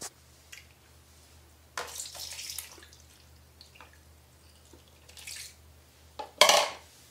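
Water splashing and dripping in a basin holding a soaking cat, in a few short bursts, the loudest near the end.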